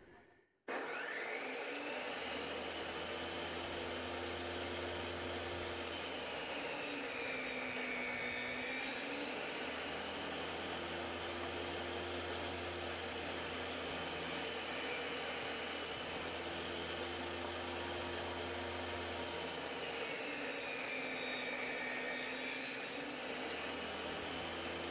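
Table saw running steadily, starting abruptly about a second in, with a low hum and slowly wavering whine and no change in load.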